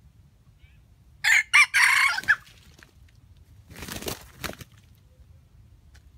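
Red junglefowl rooster crowing once: a short, clipped crow of about a second, broken into a few notes. About a second and a half later comes a brief flurry of wingbeats as two roosters clash.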